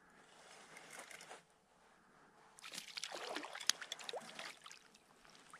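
A hooked smallmouth bass thrashing and splashing at the water's surface beside a canoe as it is reeled in; the splashing starts about halfway through and lasts about two seconds.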